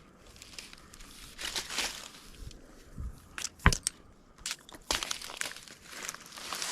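Irregular crackling and scraping against pine bark with sharp clicks and snaps, the loudest about halfway through: climbing spurs biting into the trunk and gear rasping on the bark as the climber works up the tree.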